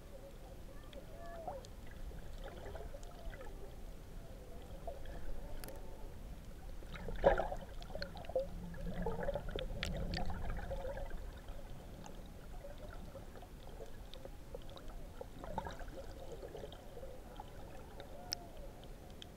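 Underwater sea ambience picked up by a submerged camera: muffled moving water and bubbles with scattered faint clicks, and a louder burst about seven seconds in.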